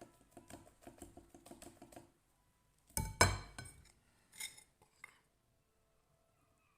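A utensil clicking rapidly against a mixing bowl as flour is stirred into madeleine batter for about two seconds. About three seconds in comes a loud clatter of kitchenware, followed by a couple of lighter clinks.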